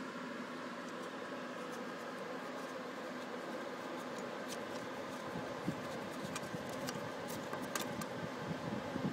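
Steady mechanical hum with several faint steady tones, typical of lab equipment and air conditioning. From about halfway in come small scattered clicks and knocks as the centrifuge rotor holding the phone is turned by hand.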